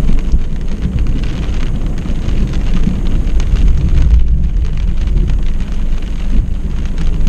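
Thunder rumbling, swelling about four seconds in, over rain pattering on a car's windshield.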